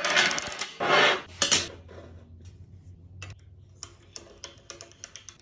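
Steel railroad spike pieces scraping across a steel table top in three rough strokes over the first couple of seconds, then light metallic clicks and taps as the pieces are handled and set in place.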